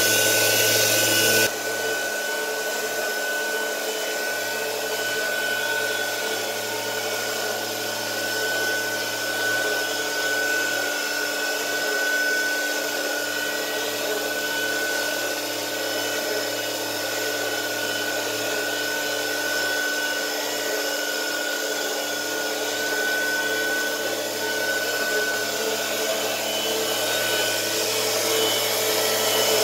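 Fanuc Tape Drill Model F CNC milling machine, converted to Mach3 control, with its spindle running and an end mill cutting a metal part under flood coolant: a steady whirring with a constant high whine and low hum. The level drops a little about a second and a half in, then holds even.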